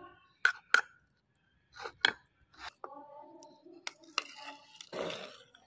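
Metal spoon clinking and scraping against a ceramic bowl while stirring syrupy candied watermelon rind cubes. It gives a series of sharp clinks, some ringing briefly, with a longer scrape near the end.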